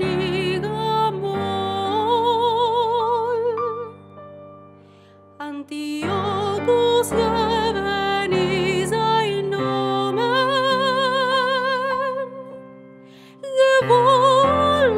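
A woman singing a slow song in a classical style with wide vibrato on held notes, accompanied by chords on a digital piano. The music drops away twice, briefly, between phrases, about four seconds in and again near the end.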